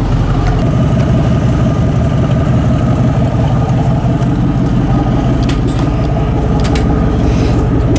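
1989 Ford F-150 pickup's engine idling steadily, with a few light clicks or knocks in the second half.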